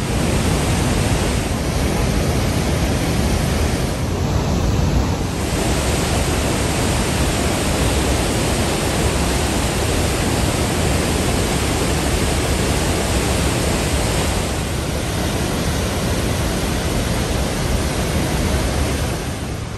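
The Rhine Falls: a large waterfall's white water pouring over the rocks in a loud, steady rush. The hiss dulls briefly twice.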